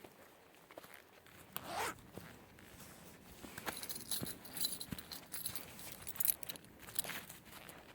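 Footsteps on a woodland trail with clothing rustling, in scattered crackly scuffs that get busier about halfway through. A brief sliding squeak comes about two seconds in.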